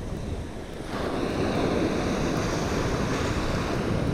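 Small surf breaking and washing up a sandy beach, swelling louder about a second in, with wind rumbling on the microphone.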